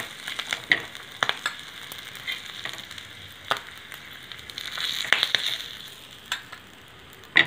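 Oil sizzling on a hot dosa griddle under pieces of fried dried fish, with a few sharp scrapes and clicks of a metal spatula on the griddle as the pieces are lifted off.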